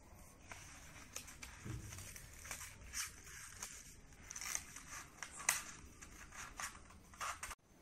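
Sheet of paper rustling and crackling as it is handled and bent into a curl by hand: irregular small crinkles. The sound cuts off abruptly near the end.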